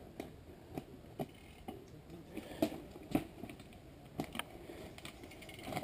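Faint, irregular clicks and knocks of a mountain bike rolling down a rough dirt trail and over a jump.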